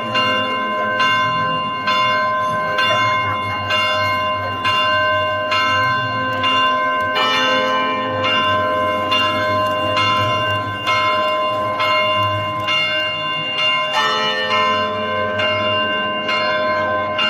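Church bells ringing in a quick, steady peal, struck about twice a second, their tones ringing on between strikes, over the murmur of a crowd.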